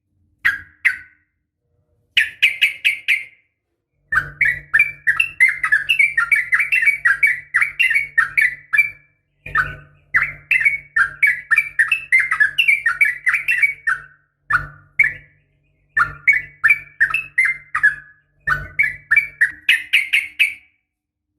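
Female yellow-vented bulbul (trucukan) giving a fast, chattering call: bursts of rapid notes, some brief and some several seconds long, separated by short silences. It is a female's call to males, used as a lure to set male trucukan singing.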